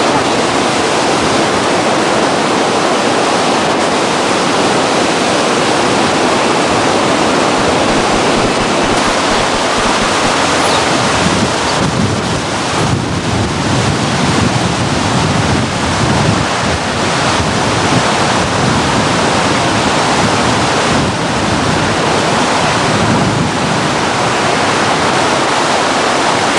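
Loud, steady rushing of floodwater, with wind buffeting the microphone.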